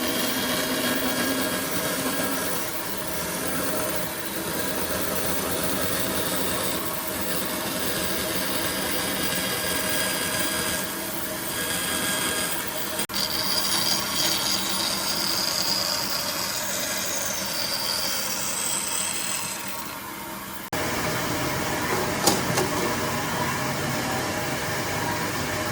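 A tool cutting wood, a sawing, scraping noise that keeps going in several stretches, with sudden changes where the footage is cut.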